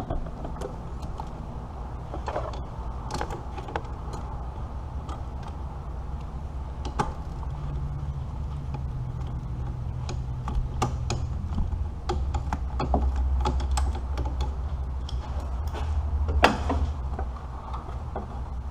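Hand tools working on engine parts under the hood: irregular metallic clicks and knocks, with a sharper clank near the end, over a steady low hum.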